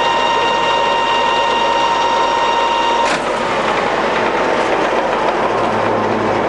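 Colchester Master 2500 centre lathe's geared headstock running at about 1030 RPM, a steady gear whine. About three seconds in there is a sharp click, after which the whine drops slightly in pitch and gets softer.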